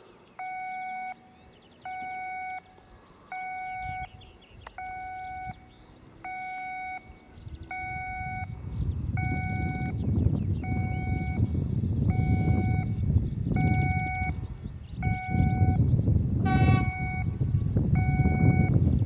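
Level-crossing warning signal sounding an electronic tone about every second and a half. From about eight seconds in, the running noise of an approaching Newag Impuls electric multiple unit builds into a rumble that becomes the loudest sound, with a short bright note near the end.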